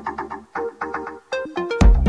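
Electronic background music: a rhythmic synth melody with no drums, then a short fill, with the kick drum and bass entering near the end.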